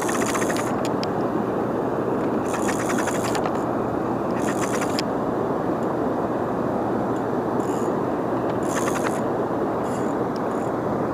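Steady rush of water from a dam's tailwaters, with a spinning reel cranked in several short spells, its gears giving a fine rapid ticking.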